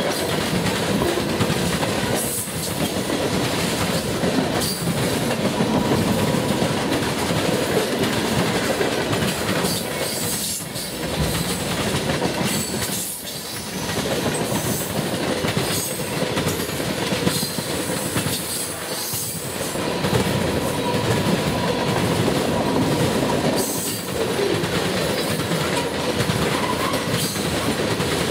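Freight cars of a passing train rolling by close at speed: steel wheels rumbling and clattering on the rails, with a faint steady wheel squeal. The noise dips briefly every few seconds as the gaps between cars go past.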